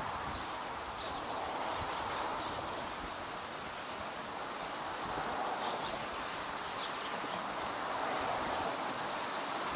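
Steady rushing outdoor background noise that swells and eases slowly, with faint short high chirps now and then.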